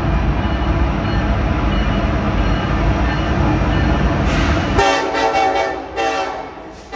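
Union Pacific freight train's diesel locomotive rumbling loudly as it comes through. Its air horn sounds about five seconds in, a longer blast and then a shorter one, as the low rumble drops away.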